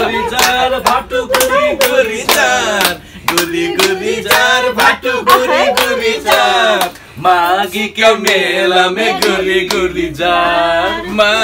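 People singing a folk song together, with hands clapping along in a steady beat.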